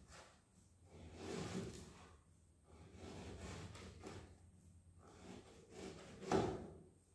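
Irregular handling noises: things being moved and knocked about, with a sharper knock about six seconds in.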